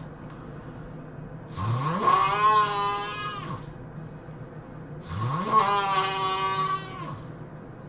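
A person snoring: two long snores about three and a half seconds apart, each about two seconds long, starting with a rising pitch and then holding steady.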